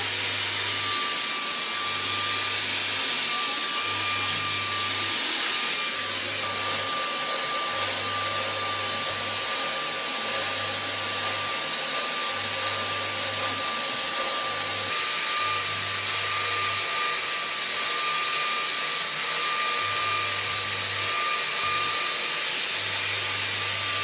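Vacuum cleaner running steadily, a constant whooshing hum with a steady whine.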